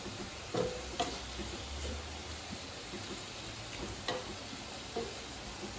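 Shrimps, garlic, ginger and bell pepper sizzling in oil in a wok, with a few light knocks of a utensil stirring them against the pan.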